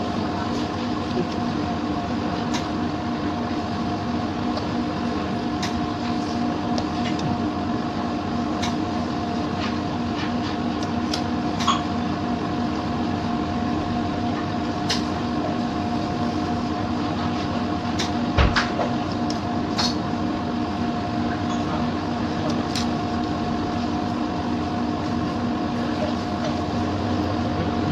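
Steady mechanical hum made of a few constant tones over even noise, with scattered light clicks and one louder knock about two-thirds of the way through.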